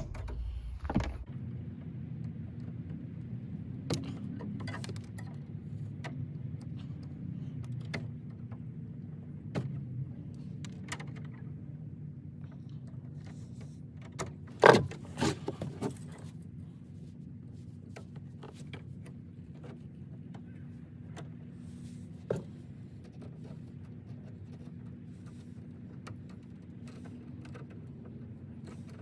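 Scattered clicks and metallic clinks of electrical wiring work, wires and hand tools handled at a box, over a steady low hum. The loudest cluster of clicks comes about halfway through.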